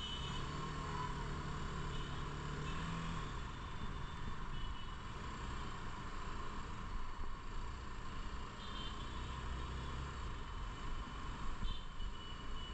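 Steady running noise of a vehicle in motion, with a low hum over the first three seconds or so.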